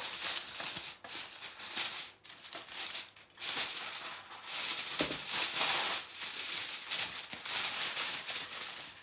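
Aluminium foil crinkling and crackling as hands press and fold it down over the edges of a baking tray, in uneven stretches with a few short pauses in the first seconds.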